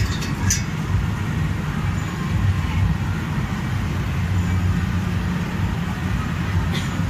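Steady low hum with an indistinct background din of an indoor amusement park, a few faint clicks in the first second.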